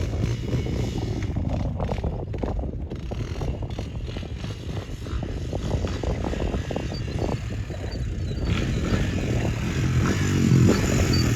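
ATV engine running, getting louder over the last few seconds.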